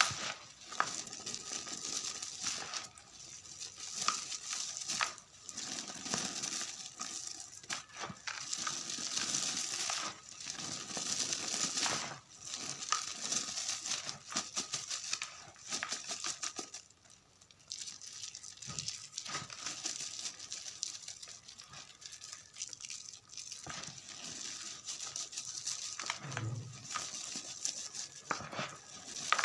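Gym chalk mixed with confetti being crumbled: a dense, irregular run of dry crunching and crinkling crackles, with a brief lull a little past halfway.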